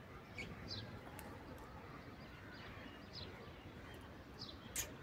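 Faint bird chirps: several short, high, downward-sliding notes scattered through a quiet background, with a single sharp click near the end.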